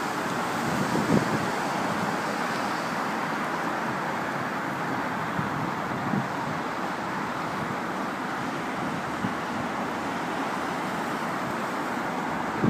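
Steady hum of road traffic, with a few soft low thuds about a second in, around the middle and near the end.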